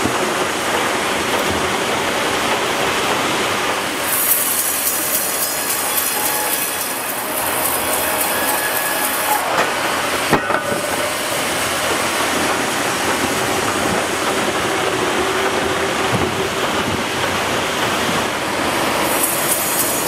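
Sawmill band saw headrig cutting a large log on its carriage: steady loud machine noise, with a high hiss from about four to nine seconds in and again near the end, and a sharp knock about ten seconds in.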